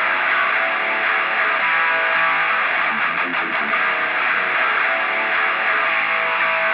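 Rock music with electric guitar, sounding thin and muffled as if through a small speaker, with no deep bass and no treble.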